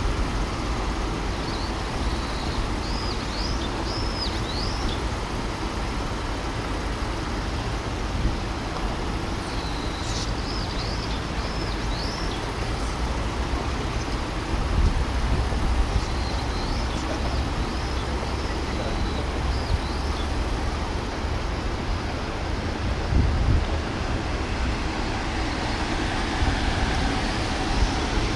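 Steady city traffic noise with wind rumbling on the microphone at times, and a few groups of short high bird chirps.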